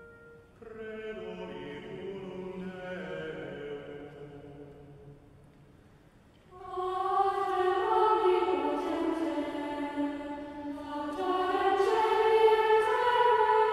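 Choral music: voices holding long sustained chords, a soft phrase that fades out about five seconds in, then a louder, fuller entry about six and a half seconds in.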